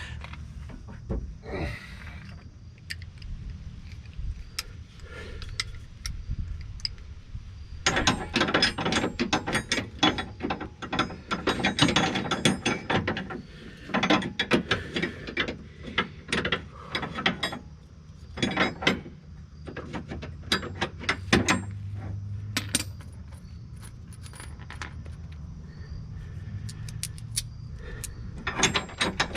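Hand socket ratchet clicking in quick runs as a bolt is turned, in several bursts with short pauses between them, the busiest stretch in the middle.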